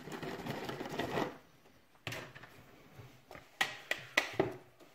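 Wire whisk working thick pancake batter in a bowl: a scraping, stirring sound in the first second, then a string of sharp clicks and taps in the second half as the whisk knocks against the bowl.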